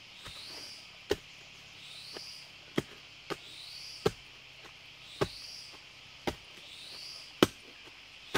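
A long digging bar jabbing into forest soil and roots, striking about once a second with sharp chops as a wild bamboo shoot is dug out. A steady high insect drone with a repeating rising chirp runs behind.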